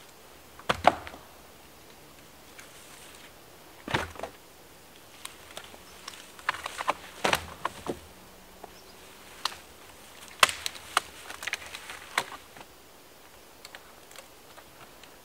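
Dry dead pine branches and poles snapping and knocking together as they are handled and broken. About five loud sharp cracks come at irregular intervals, with smaller crackles and clicks between them.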